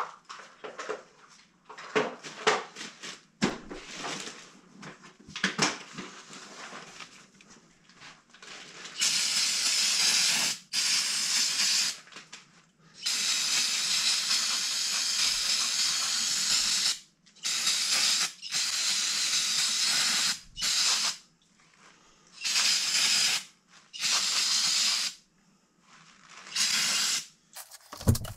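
Light clicks and knocks of metal parts and tools being handled, then an aerosol spray cleaner hissing in about nine bursts of one to four seconds each, cleaning the sooty electrode and nozzle assembly of an oil burner.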